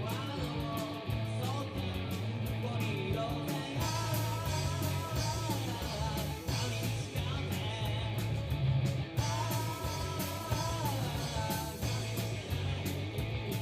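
Live rock band playing: drum kit beating steadily under a heavy, bass-like electric guitar, with a voice or lead line wavering above.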